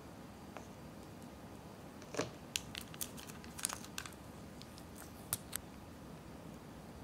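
A small condiment sachet of flavoured oil being torn open by hand: a run of sharp crinkles and snaps over about three seconds, the loudest about two seconds in.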